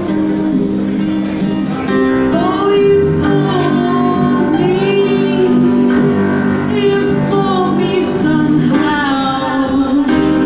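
Live rock band playing a song: a singer's voice over keyboards, guitars and drums.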